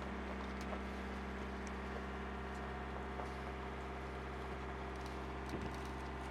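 Sailboat's inboard engine running steadily at a constant speed while motoring under way, a low even hum with several steady tones.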